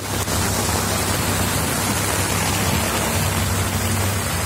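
Heavy monsoon rain, a steady even hiss, with a steady low hum underneath.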